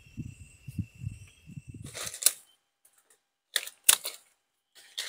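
Night insects trilling steadily over a low irregular rumble, then, after about two seconds, several loud crunching rustles in dry leaf litter with a sharp knock about four seconds in.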